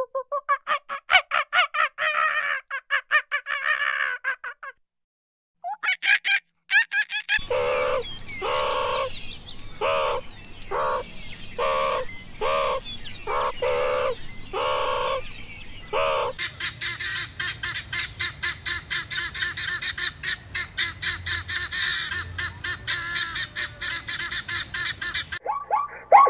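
Calls from several animals, one after another: first a quick run of high chirps and twitters, then a short honking call repeated about one and a half times a second, then a fast train of high ticking chirps.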